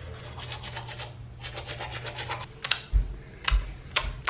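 Manual toothbrush scrubbing teeth in quick back-and-forth strokes, bristles rasping. In the last second and a half there are a few sharp knocks.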